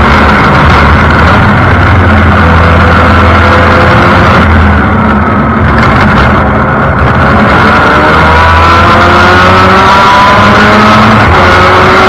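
Formula Mazda race car's two-rotor Mazda rotary engine at racing speed on an in-car microphone, loud and dense. About halfway through it eases briefly as the car lifts for a corner, then the pitch climbs, drops back and climbs again as it accelerates and changes up through the gears.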